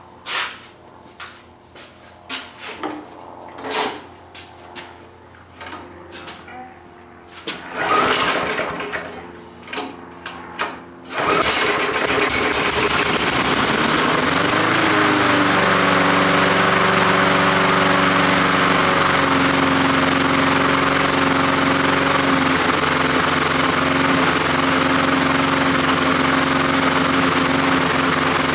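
Knocks and clicks of handling a walk-behind lawn mower, then about eleven seconds in its small single-cylinder gasoline engine catches on starting fluid and runs. Its speed wavers briefly, then settles into a steady run.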